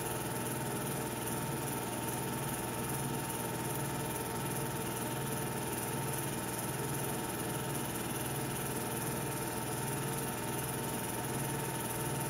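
Film projector running: a steady mechanical hum and whir with a faint regular low pulse, unchanging throughout.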